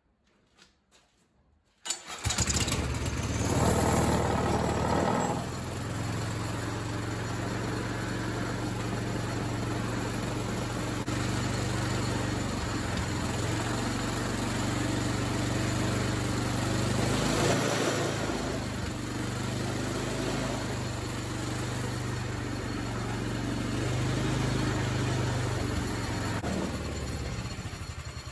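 Small engine starting abruptly about two seconds in, running harder for a few seconds, then settling into a steady run while it turns the transaxle. It dies away near the end.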